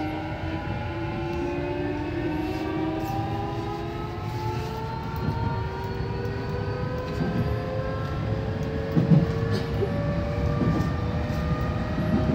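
Nankai 8000 series electric train running with its traction motor whine, several tones climbing slowly in pitch as it picks up speed, over a steady rumble of wheels on rail. A few wheel knocks over rail joints in the second half.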